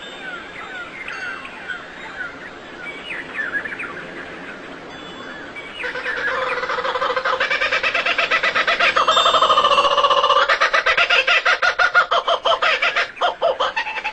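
Birds chirping in short falling notes. About six seconds in, a louder call starts, a fast run of pulses on several steady pitches.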